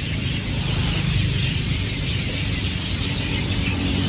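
A dense chorus of many birds singing at once in the trees, a continuous wash of high chattering calls, over a steady low rumble.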